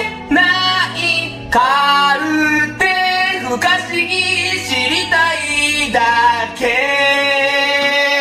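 A high voice singing a melody of held notes over a steady low musical backing, ending on one long held note.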